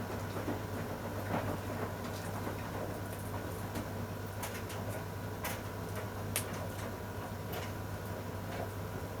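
Scattered small clicks and taps, a few sharper than the rest, over a steady low hum.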